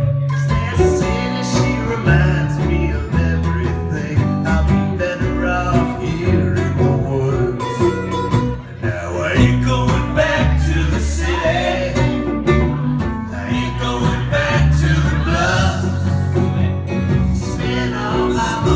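Live acoustic country-folk band: several acoustic guitars strummed together under male lead singing, with harmony vocals joining in.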